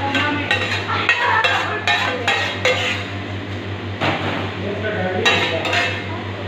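A metal ladle clinking and scraping against a copper handi as biryani is served into it. There is a quick run of clinks over the first three seconds and a few more later, over a steady low hum.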